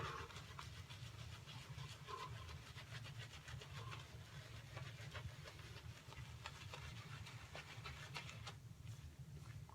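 Synthetic shaving brush working tallow-soap lather on the face, agitating it with a little added water: a faint rubbing with many small crackles, over a steady low hum.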